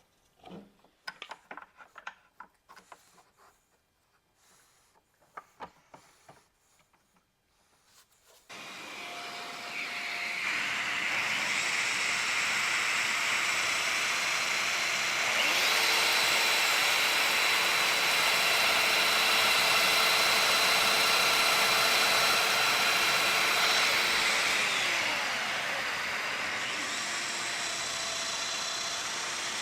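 A few light knocks of handling, then a domino joiner's motor starts about eight seconds in and runs with a steady whine as it cuts mortises for loose tenons. The whine steps up in pitch about halfway through and drops back near the end.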